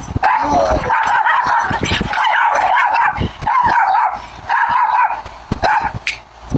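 Dogs barking and yipping over and over in quick, repeated calls, picked up by a security camera's microphone.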